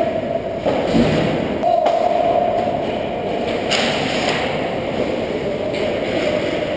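Ice hockey sounds in an indoor rink: skate blades scraping the ice over a steady hum, with one sharp knock about two seconds in and a short hissing scrape of skates on ice about four seconds in.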